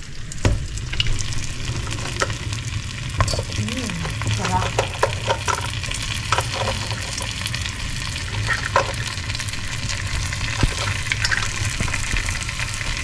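Shrimp sizzling in a pan of butter sauce while being stirred, with frequent short clinks and scrapes of a utensil against the pan over a steady low hum.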